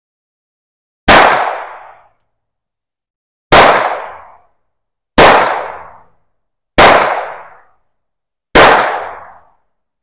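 Five shots from a semi-automatic pistol, fired one at a time about one and a half to two and a half seconds apart, each with about a second of echo dying away after it.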